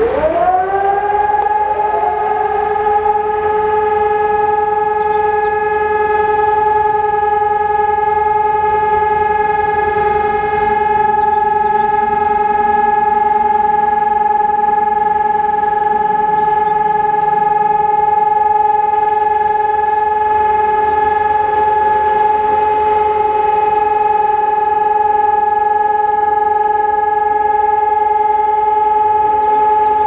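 Electronic civil-defence siren sounding the continuous test tone of the Czech monthly siren test. It glides up in pitch over the first second or two, then holds one even tone.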